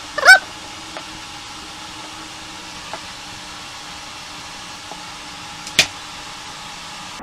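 Workshop sound with a steady hiss and hum, a short, loud squeak that slides in pitch about a third of a second in, and a single sharp snap near six seconds, in keeping with a Porter Cable pneumatic brad nailer driving a brad into wood.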